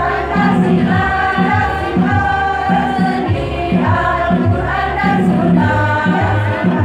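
Women's choir singing together, their voices held in long sustained notes, over a steady low beat that pulses about twice a second.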